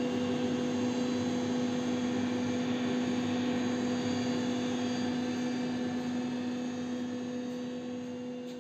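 CNC wood router's spindle motor running with a steady hum over a rushing noise, starting to fade out near the end.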